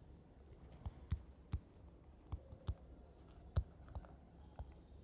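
Stylus tips clicking against a tablet screen while handwriting: about eight short, irregular clicks.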